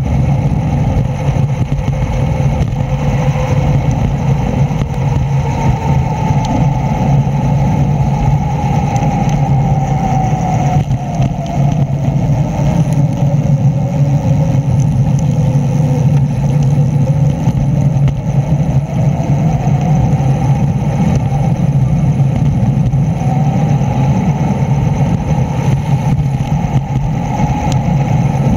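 Steady vehicle running noise from a ridden two-wheeler: a constant low hum with a higher whine that slowly rises and falls in pitch as the speed changes.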